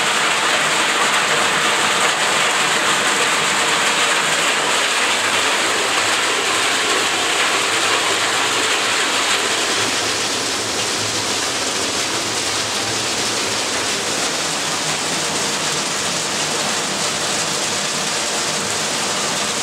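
Hail and heavy rain drumming on roofing and paving, steady and dense, turning a little softer about halfway through.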